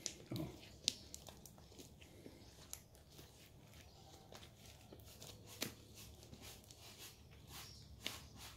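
Slime being kneaded, folded and stretched by hand: faint, irregular small clicks as it sticks and pulls apart between the fingers.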